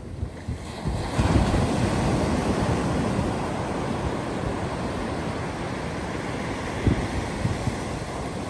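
Ocean surf: a small wave breaks about a second in, then foam washes up the sand in a steady hiss that slowly eases.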